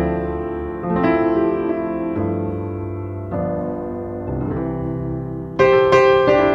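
Background piano music: slow, sustained chords, with a new chord struck about every second and a louder one near the end.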